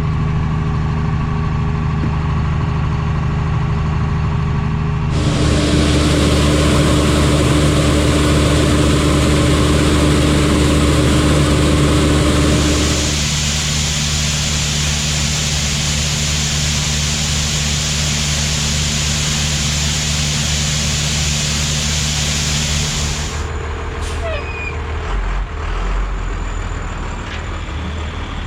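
Truck engine running steadily. About five seconds in, a loud, even rushing hiss starts, joined by a higher drone for the first several seconds of it. The hiss cuts off sharply near the end.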